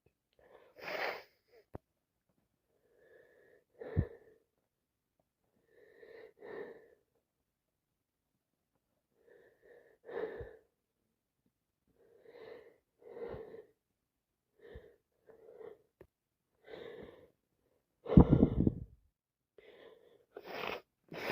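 A person with a cold and allergies sneezing over and over: a series of short sneezes and catching breaths every two to three seconds, often a small gasp and then the sneeze, with the loudest sneeze about 18 seconds in.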